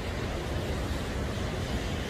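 Sea surf washing steadily on the shore, with a low rumble of wind.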